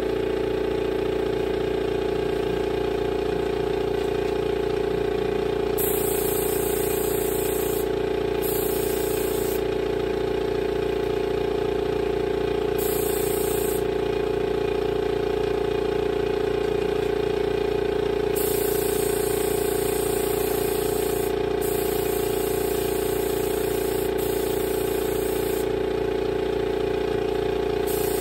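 Air compressor running with a steady hum, with hissing bursts from an air spray gun spraying surfacer primer; the hiss starts and stops several times, the longest burst lasting several seconds.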